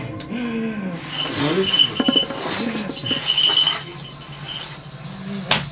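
A man's wordless, drawn-out vocal cries, rising and falling in pitch, made as a possessing spirit on all fours, with bells jingling.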